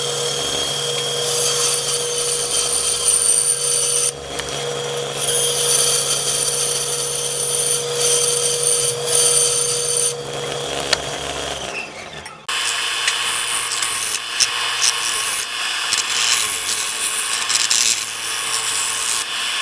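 Power tool running and cutting or shaping wood, a steady motor hum under the noise of the work; the sound changes abruptly about twelve seconds in.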